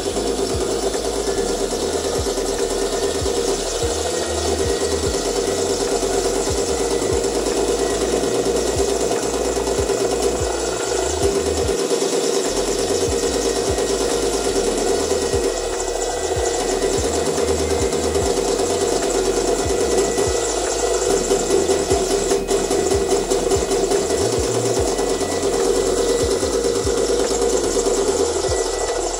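Sound effects played through small speakers: a steady simulated Kamov Ka-50 helicopter engine running sound mixed with rapid-fire Shipunov 2A42 30 mm autocannon fire. The rapid rattle of the gun pauses briefly a few times.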